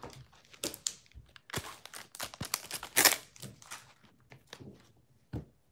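Wrapper of a trading card pack crinkling and tearing as it is opened, a run of irregular crackles and rustles with the sharpest tear about three seconds in.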